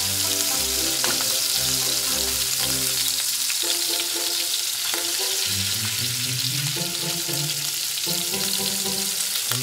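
Sliced pork frying with a steady sizzle in a pan thinly wiped with oil, stirred and turned with chopsticks.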